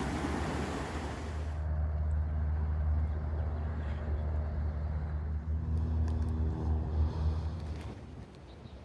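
A motor vehicle's engine running with a steady low hum, dying away about eight seconds in.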